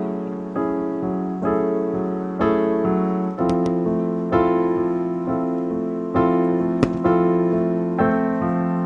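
Slow, gentle solo piano background music, with sustained chords changing about every second. A few sharp clicks are heard about three and a half seconds in and again near seven seconds.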